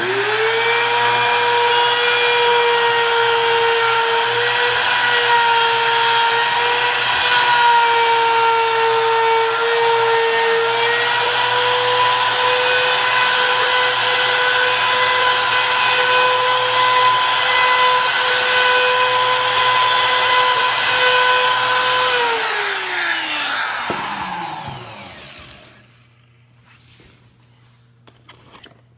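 Small handheld router running at full speed, its bit trimming laminate flush around the doorknob hole in a door, a steady high whine with cutting noise. After about twenty seconds it is switched off and the whine falls away as the bit spins down.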